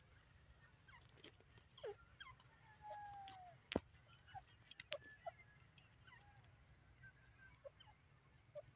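Grey francolin giving faint, scattered short chirps and soft whistled calls, one of them a longer falling whistle, over a low steady rumble. A single sharp click a little under four seconds in stands out above them.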